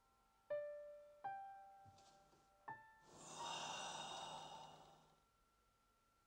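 Three slow piano notes, each left to ring out, then a long, heavy sigh from a man lying back, lasting about two seconds.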